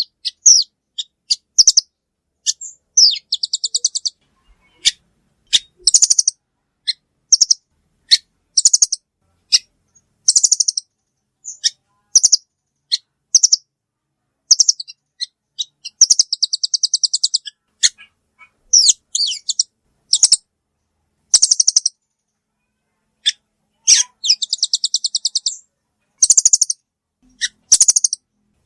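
Velvet-fronted nuthatch (rambatan) calls played as a bird-lure recording: loud, sharp, high chirps in quick series, broken every few seconds by rapid rattling trills about a second long.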